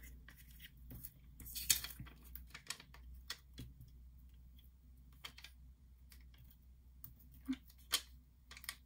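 Paper craft pieces and cardstock being handled on a tabletop: scattered light taps, clicks and soft rustles, with a few sharper clicks near the end.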